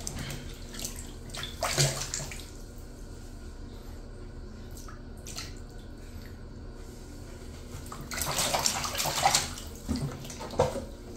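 Water splashing in a small plastic baby bathtub as a baby slaps and kicks at it: bursts of splashing in the first couple of seconds and again from about eight seconds in, with quieter lapping and a few single splashes between.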